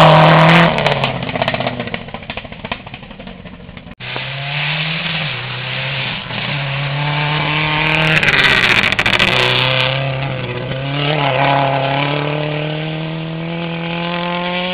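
Rally car engines on a gravel test stage. A Subaru Impreza rally car speeds past and fades in the first few seconds. Then a second rally car approaches with its engine pitch stepping through gear changes, passes close with a loud rush about eight to nine seconds in, and accelerates away, engine pitch climbing.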